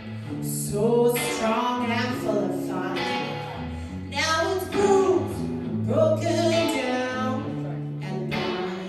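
Music: a song sung over guitar accompaniment, with held bass notes underneath.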